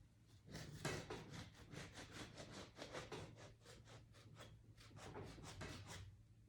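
A quiet, quick series of short scratching, tapping strokes, several a second, with one louder stroke about a second in; they stop shortly before the end.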